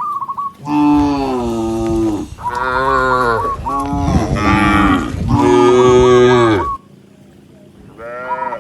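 Several cattle mooing, one long call after another with some overlapping, then a short pause and another moo starting near the end.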